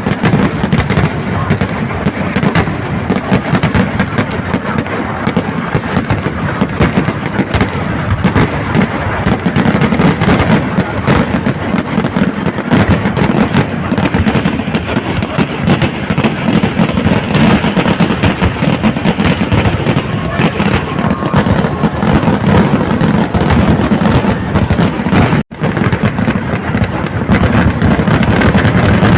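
Kerala temple-festival firecrackers (vedikettu) going off in a dense, continuous barrage, the bursts running together into one unbroken crackle and rumble. The sound breaks off for an instant about 25 seconds in, then carries on.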